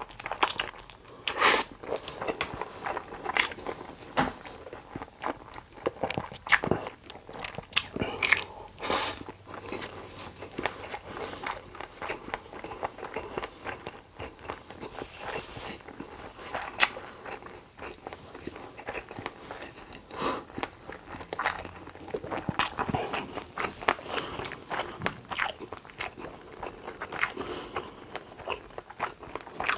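Close-miked eating: irregular crunching bites and chewing, with a few sharper, louder crunches.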